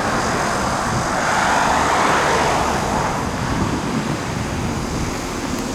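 Engine noise passing by, swelling about two seconds in and then slowly fading, over a steady low rumble.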